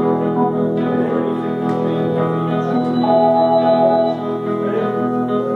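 Live band music from a rehearsal: guitars playing along with steady held chords.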